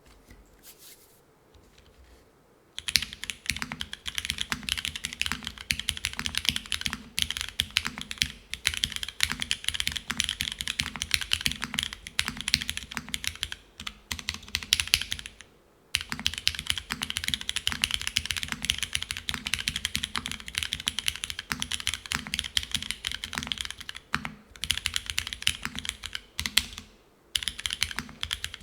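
Fast, continuous typing on a Geonworks F1-8X V2 mechanical keyboard: aluminium plate, O-ring gasket mount, no foam, Cherry HG Black linear switches and GMK Classic Beige keycaps. The typing starts about three seconds in, with brief pauses near the middle and twice near the end.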